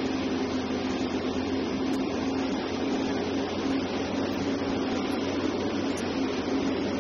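Liebherr R 984C hydraulic excavator's diesel engine running at steady revs: an even, constant hum with no knocks or clatter.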